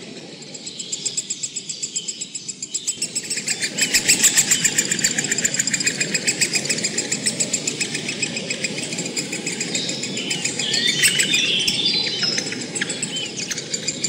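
Woodpecker nestlings in a tree-hole nest giving rapid, rhythmic high calls, several a second, that swell about four seconds in, with a flurry of sharper chirps near the end. Under them runs a steady low rumble.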